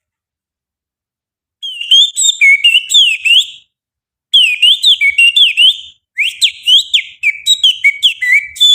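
Finger whistling imitating the song of an oriental magpie-robin (kacer): quick, sliding high whistled phrases in three runs with short breaks, starting after about a second and a half of silence.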